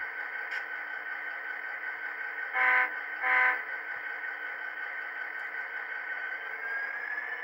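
Sound-equipped HO-scale GP35 model locomotive: the decoder's turbocharged EMD 567D3 diesel engine sound idling through its small speaker, broken by two short horn blasts about two and a half seconds in, the two-short 'proceed' signal before moving off. Near the end a whine starts to rise as the engine sound begins to rev.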